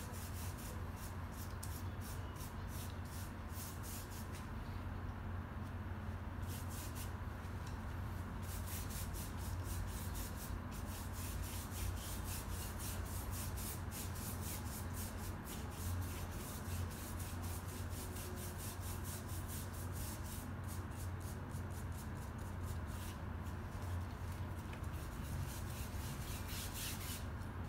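Paintbrush scrubbing thick paint across canvas paper in quick repeated back-and-forth strokes, a scratchy rubbing, over a steady low hum.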